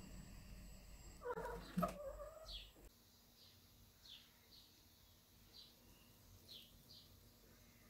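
A ragdoll cat gives a short meow about a second and a half in. After that, a string of faint, short, high chirps from small birds.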